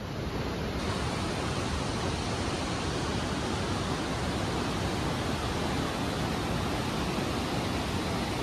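A mountain river rushing steadily over a stony bed, an even, unbroken rush of water.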